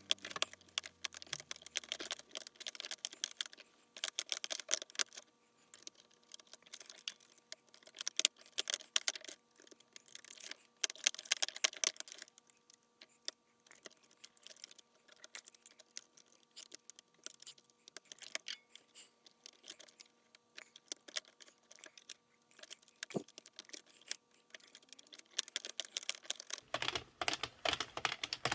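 Plastic circular knitting machine clattering as its hand crank turns, its needles clicking rapidly and unevenly in bursts, during the first rows while the yarn tension settles.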